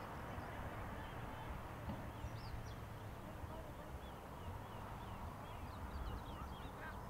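Steady low outdoor rumble, like wind on the microphone, with many short chirping bird calls over it, thickest about two seconds in and again near the end.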